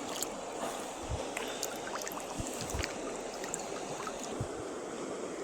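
Shallow river riffle water rushing steadily, with scattered small clicks and a few short low thumps on top.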